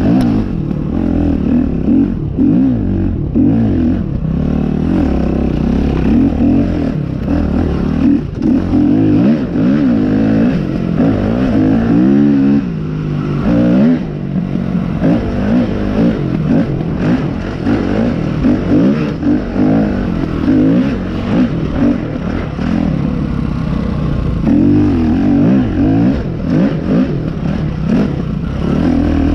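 Dirt bike engine being ridden hard on a trail, its pitch rising and falling again and again with the throttle, with rattling from the bike over rough ground.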